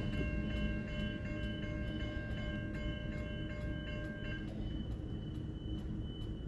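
Railway level crossing warning bell ringing in a rapid regular pattern, about three strikes a second, over the low rumble of a passing freight train. About four seconds in, most of the bell's tones drop out and a single high tone keeps ringing.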